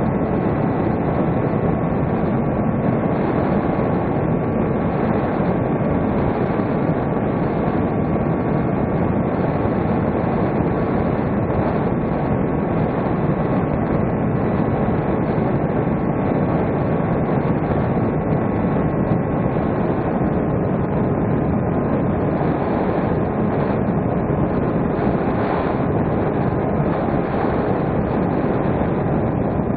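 Electric motor and propeller of a fixed-wing RC plane running steadily in cruise, heard from on board: a continuous whine over a rushing of air across the microphone. The whine sinks slightly in pitch toward the end as the motor draws less current.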